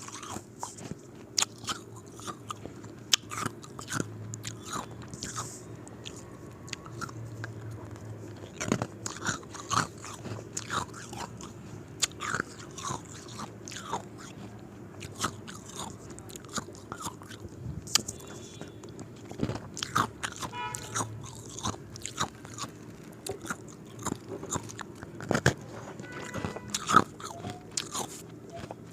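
Square ice cubes being bitten and chewed, with sharp crunching cracks coming irregularly, one after another. Around the middle there is a quick rattle of small cracks as a piece splinters.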